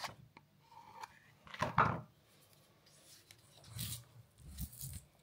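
Close rubbing and scraping with a few clicks: a microphone being handled while it is set up. The loudest scrape comes a little under two seconds in, and more rustling follows around four seconds.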